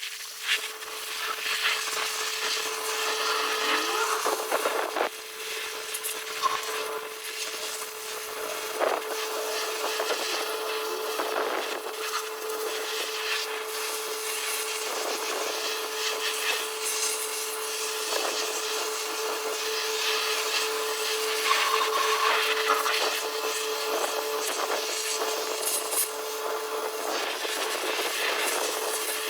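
Scrubbing and rubbing strokes on a truck's air-cooler (intercooler) intake as oil and grime are cleaned off it, irregular and scratchy over a steady hum.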